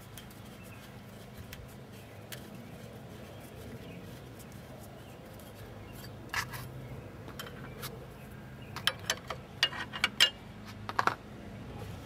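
Scattered light clicks and clinks of metal suspension parts being handled as a ball joint stud is worked up into the steering knuckle, over a faint steady low hum. The clicks come in small clusters, the busiest about three quarters of the way in.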